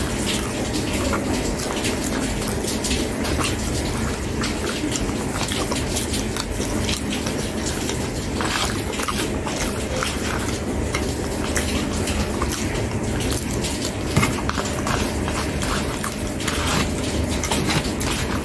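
Close-up eating sounds: wet chewing and mouth clicks, with a metal spoon scraping and tapping in a disposable bowl. A steady low hiss runs underneath.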